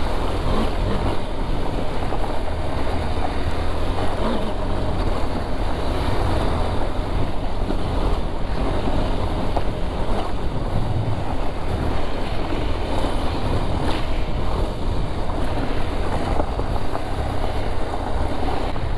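KTM trail motorcycle running along a dirt track, its engine noise mixed with wind rushing over the microphone in a steady, dense rumble.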